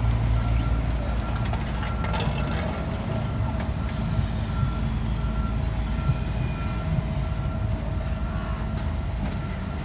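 Reversing alarm on a heavy work vehicle, beeping at an even pace over the low rumble of its engine running.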